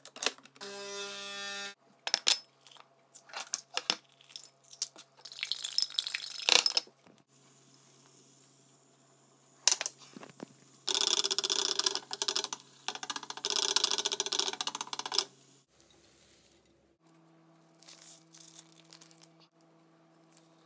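Breakfast being made in a kitchen: crockery and cutlery clinking and clattering, with a short steady tone about half a second in and two longer stretches of dense noise, one midway and a longer one a few seconds later. A faint steady hum sits under it all.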